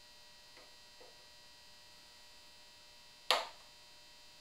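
Hand screwdriver working a tiny screw out of a metal plate on a wooden rifle stock: a couple of faint ticks, then one sharp click about three seconds in. A faint steady electrical hum runs underneath.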